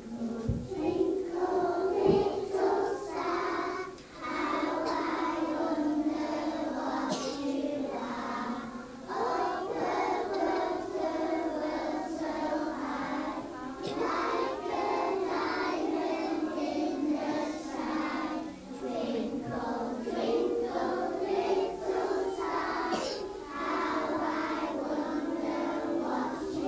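A group of young children singing a song together, in phrases of about five seconds with short breaths between them.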